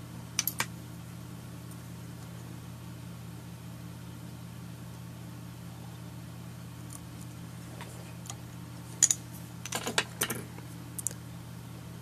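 Small sharp clicks and taps from fly-tying tools handled at the vise while the thread is split with a needle: two just after the start and a cluster from about nine to eleven seconds in. A steady low hum runs underneath.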